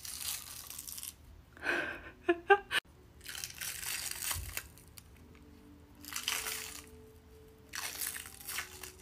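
Latex special-effects prosthetic being peeled off the skin: a sticky crackling tear in about six separate pulls, with a quick run of clicks about two and a half seconds in.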